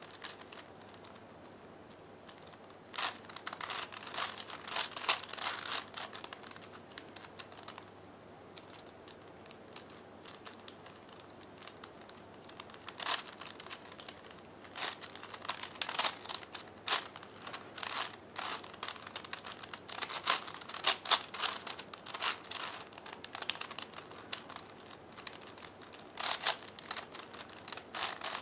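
A plastic V-Cube 5x5x5 puzzle cube being turned by hand: rapid clicking and clacking of layer turns in flurries. A pause of about six seconds follows the first flurry, then the turning runs on almost without stopping.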